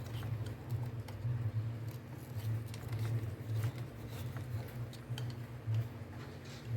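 Steady low hum, with a few faint clicks and taps of small metal parts being handled.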